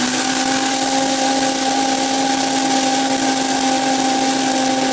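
Vitamix blender running at full speed with dry rice in the jar, grinding it down into small grains. The steady motor whine sits under a loud rushing hiss of rice being churned.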